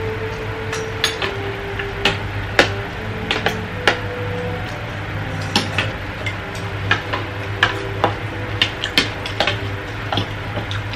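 Spoons and forks clinking and scraping against plates and bowls as several people eat: irregular sharp clicks, a few each second, over faint steady background tones.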